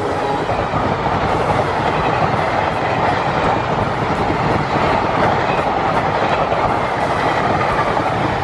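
Diesel-hauled passenger train passing close by, a loud steady rumble with the rapid clatter of wheels over the rail joints. The locomotive horn's last note cuts off just as it begins.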